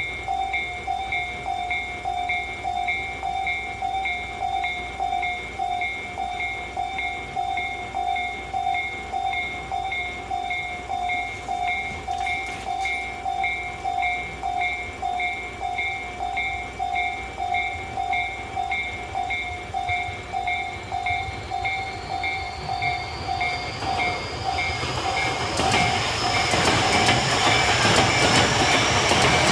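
Japanese railway level-crossing warning bell ringing in a steady, fast, even rhythm. In the last third a train comes up: a rising whine and a swelling rumble grow until they are louder than the bell.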